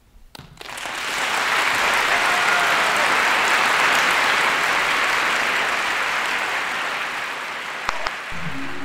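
Live audience applauding, swelling in over the first second or so and then holding steady.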